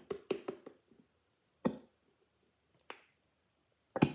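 Hand smacking the base of an upside-down plastic Elmer's glue bottle to work thick glue down toward the nozzle: a quick run of sharp taps at the start, then three single taps more than a second apart.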